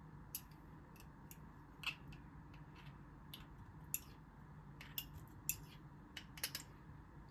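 Light, irregular clicks and taps of kitchen utensils being handled, about a dozen, over a faint steady low hum.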